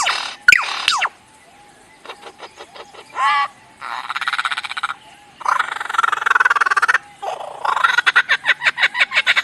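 Lyrebird singing a rapid medley of mimicked sounds: falling whistles at the start, trains of fast clicks, a brief wavering call and stretches of rattling chatter.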